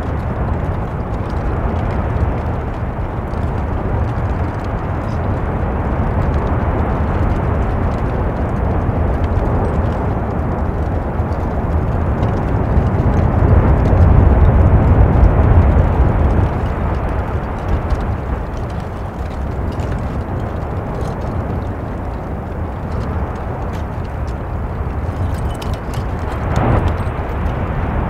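Erupting volcanic vent: a steady deep rumble of lava churning and bursting in the crater, growing loudest about halfway through.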